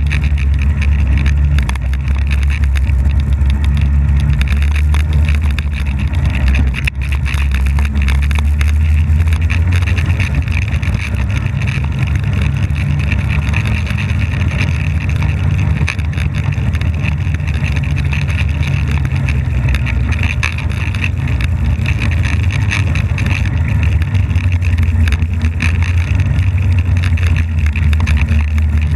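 Polaris snowmobile running under way across snow: a steady low engine drone with a higher whine above it, dipping briefly about seven seconds in.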